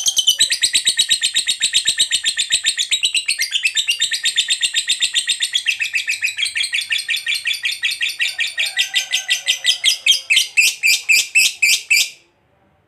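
Lovebird giving a long ngekek: a rapid, unbroken chattering trill of high notes, about eight a second at first, slowing gradually and cutting off abruptly near the end. This long ngekek is the call that hobbyists prize in a 'gacor' lovebird and play to other lovebirds to get them calling.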